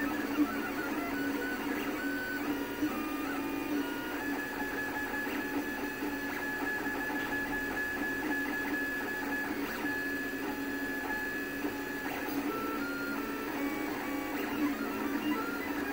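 An FDM 3D printer's stepper motors whine in tones that jump from pitch to pitch as the print head moves, over a steady low hum. The printer is laying down the top layers of a PLA print.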